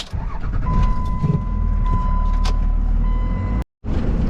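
Truck engine running with a strong low rumble, heard from inside the cab, with a steady high-pitched warning buzzer sounding for about three seconds after a sharp knock at the start.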